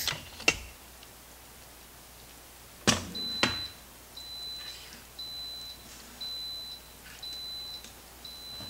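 Instant Pot electric pressure cooker being opened: a couple of clicks as the lid is turned, two knocks as it comes off a little under three seconds in, then a high electronic beep repeating about once a second.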